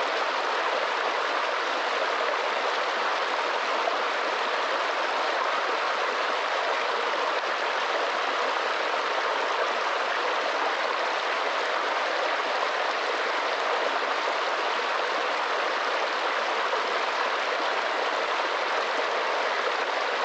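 Forest mountain stream running over rocks: a steady, even rush and babble of water.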